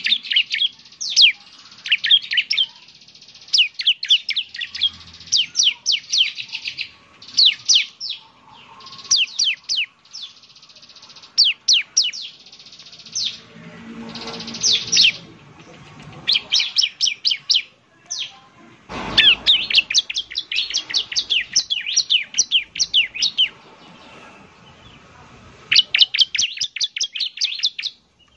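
Bar-winged prinia (ciblek) singing: rapid runs of sharp, high, quick notes in bursts of one to a few seconds, broken by short pauses.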